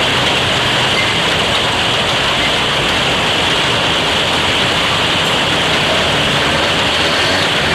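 Heavy rain pouring down and splashing on wet pavement, a loud, steady hiss.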